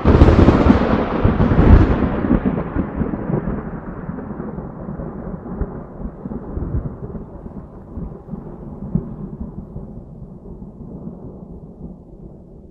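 A thunderclap: a sudden loud crash that rolls into a long, deep rumble, with a few fainter cracks along the way as it slowly fades.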